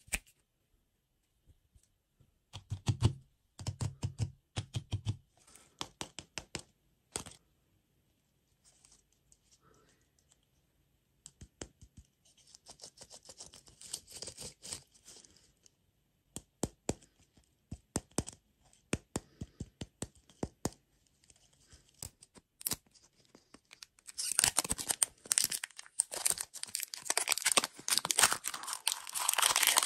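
Plastic-wrapped toy lollipops handled by hand, with scattered clicks and rustles of the plastic, then the printed plastic film wrapper of one being torn and peeled off, crinkling densely and more loudly over the last few seconds.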